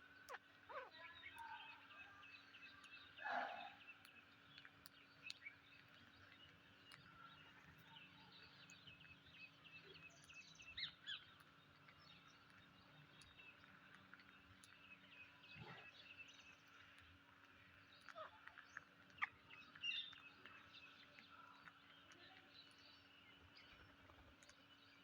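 Psittacula parakeets chirping faintly and intermittently, with a few louder, sharper calls about three, eleven and nineteen seconds in, over a faint steady hum.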